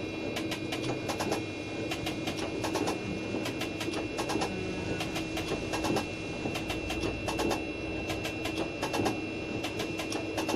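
A slotting cutter on a milling machine cutting a spline: the machine hums steadily under a quick, uneven run of clicks from the reciprocating cutting strokes.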